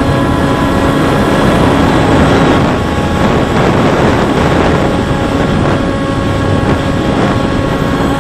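Volantex Ranger 757-3 RC plane in cruising flight: its 3715 brushless outrunner motor and 10x6 propeller make a steady whine, with wind rushing past the onboard camera.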